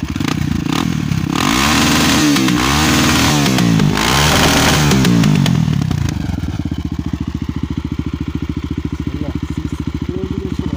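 Honda XR 250 Tornado's single-cylinder four-stroke engine, breathing through a newly fitted 778 Powercore 3 aftermarket exhaust. It idles, is revved up and down several times in a row for about five seconds, then drops back to a steady idle. The owner calls the note much stronger ('bem mais forte').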